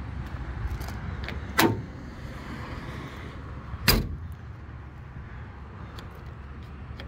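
Two sharp metallic clicks, about two seconds apart, from the latches and doors of a pickup's steel service-body toolbox compartments being worked, over a steady low rumble.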